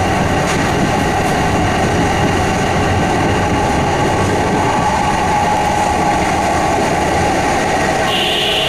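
Kintetsu 3220 series subway train running at speed through the tunnel, a loud steady rumble of wheels and rails heard from inside the car. A higher steady tone joins just before the end.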